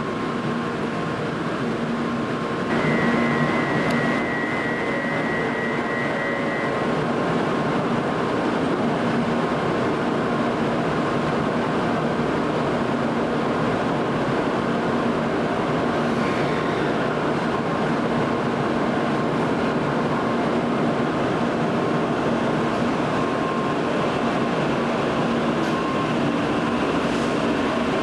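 Steady train noise from a Tokaido Shinkansen train, an even rushing hiss with a low steady hum. A high steady tone sounds for about four seconds near the start.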